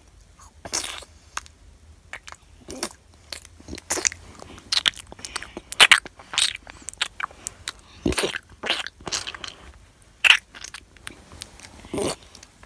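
Play-acted eating noises made by mouth: an irregular string of short crunchy chomps and chewing sounds.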